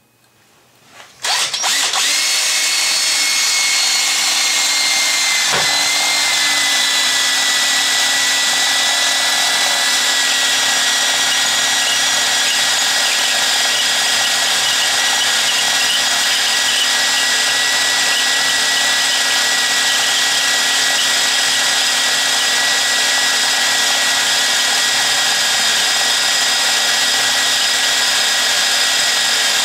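Electric drill starting about a second in and running steadily at high speed, drilling into the old cast iron closet flange to anchor the new ring; its whine drops slightly in pitch over the next few seconds as the bit takes the load.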